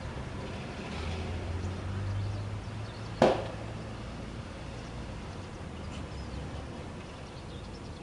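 A single sharp click about three seconds in, over a steady low background hum.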